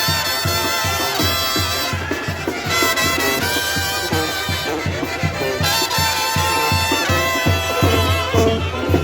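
Brass band music: horns playing sustained melodic phrases over a steady bass beat.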